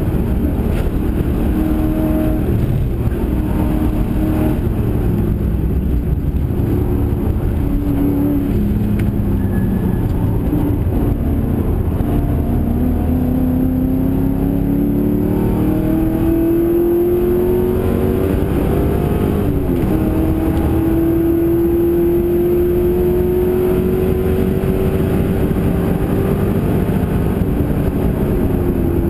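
Holden NZV8 race car's V8 engine at racing speed, heard from inside the cabin: short revs and gear changes early on, then two long pulls rising steadily in pitch, split by a sudden drop about two-thirds of the way through.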